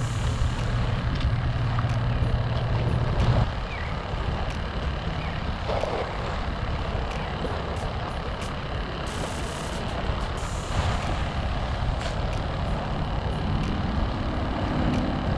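Steady outdoor rumble of wind on the microphone and small waves washing on the beach, with a low steady hum for the first three seconds or so.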